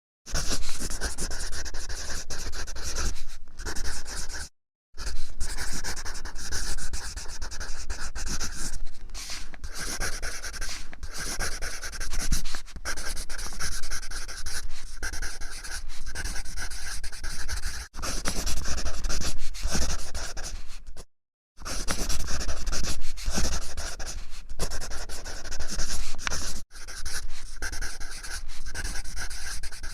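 Pencil lead scratching across paper in continuous writing strokes, a dry rasping that stops briefly twice when the pencil is lifted.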